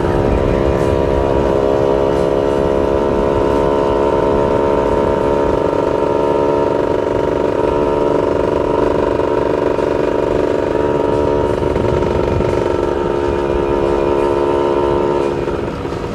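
Yamaha F1ZR's two-stroke single-cylinder engine running at a steady cruise, heard from the rider's seat over wind and road rumble. The engine note holds one pitch, then drops away near the end as the throttle eases.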